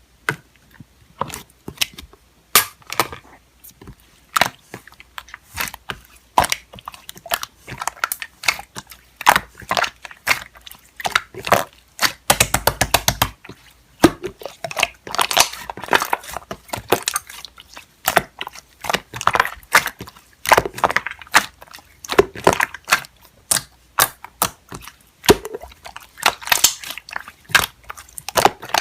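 Slime being squished, stretched and pressed by hand, giving a steady stream of sticky clicks, pops and crackles, with a quick rattle of clicks about twelve seconds in.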